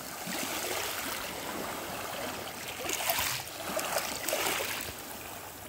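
Small waves washing over a pebble beach: a steady wash of water on shingle that swells twice, about three and four and a half seconds in.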